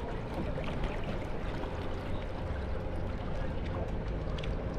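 Canal boat's motor running steadily under way, a low even drone, with water washing along the hull.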